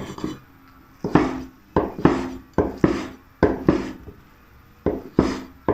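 Chinese cleaver chopping soaked dried Chinese mushroom on a bamboo cutting board: a series of sharp knocks of the blade striking the board, about two a second, some in quick pairs.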